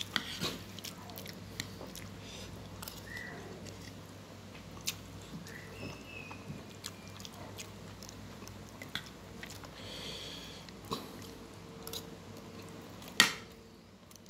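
Eating rice and chicken curry with a metal spoon from a plastic plate: chewing, with scattered light clicks and scrapes of the spoon on the plate, and one louder clack near the end.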